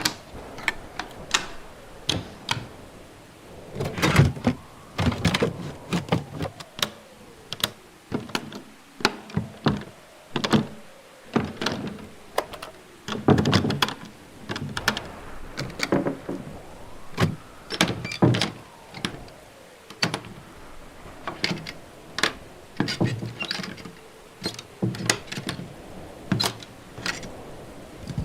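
A run of door sound effects: latches and handles clicking and doors being shut, many short separate knocks with a few heavier thuds, the loudest about four, thirteen and eighteen seconds in.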